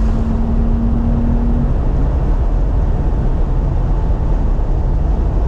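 Inside the cabin of a 2018 BMW M3 Competition at track speed: its twin-turbo inline-six running under heavy road and wind noise. A steady engine tone drops away about a second and a half in.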